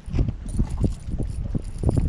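Choppy waves slapping against the hull of a bass boat in an uneven run of low knocks a few tenths of a second apart, with wind buffeting the microphone.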